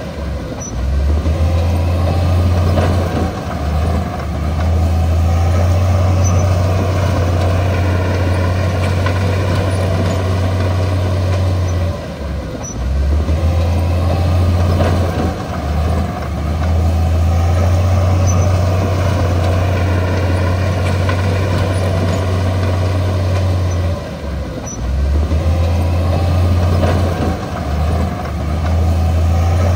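Heavy diesel engine of a crawler bulldozer running steadily under load, its deep low drone easing off briefly about every twelve seconds before coming back.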